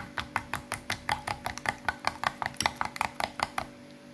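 Metal spoon beating raw eggs in a ceramic bowl: quick, even clinks of the spoon against the bowl, about five or six a second, stopping shortly before the end.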